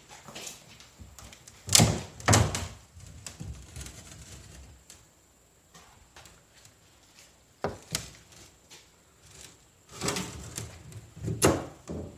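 A handful of loud, irregular knocks and thumps, two close together about two seconds in, one near eight seconds, and two more near the end.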